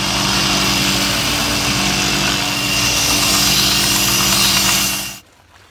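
Belt grinder running with a steel axe bit pressed to the belt: a steady grinding hiss over the motor's hum as the cutting edge is ground and convexed. The grinding stops near the end.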